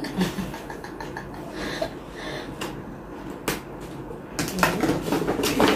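Paper gift packaging handled and rustled as it is opened, with scattered sharp clicks and taps.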